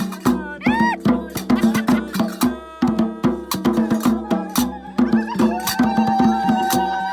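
Background music with a steady, quick percussion beat and a melody that slides in pitch, settling on one long held note in the second half.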